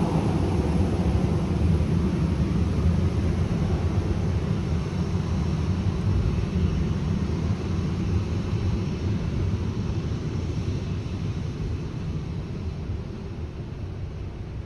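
Boeing 737-900ER airliner's twin CFM56 jet engines at taxi power: a steady low rumble with a hiss above it that fades slowly as the jet rolls away.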